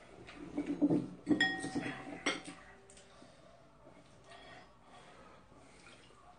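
Metal spoons and chopsticks clinking against ceramic bowls while eating: a few sharp clinks, each ringing briefly, between about one and two and a half seconds in.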